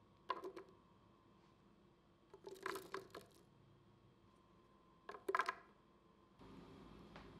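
Small pieces of raw spice-paste ingredients (turmeric, cut red chillies, candlenuts) dropped into a plastic blender jar, landing on the blades and on one another in three short bursts of quick knocks. A faint steady hiss comes in near the end.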